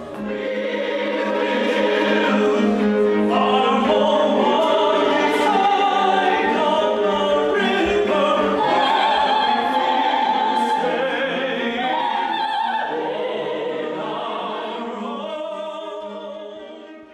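Operatic singing by several voices in held, overlapping notes with a string ensemble beneath, sustaining a low note for most of the passage; the music fades out at the end.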